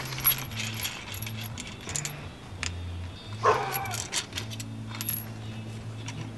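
Light metallic clicks and clinks of a bolt and a steel upper control arm with rod ends being handled, over a low steady hum. A single short bark comes about three and a half seconds in.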